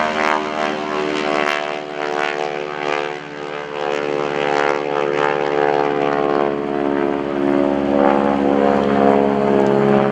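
North American SNJ Texan's nine-cylinder, 600 hp radial engine running at high power as the plane flies overhead. The low, throaty rumble of the radial carries the rasp of the propeller, whose tips go supersonic. The pitch shifts slightly as the plane turns, dipping about three seconds in and growing louder near the end.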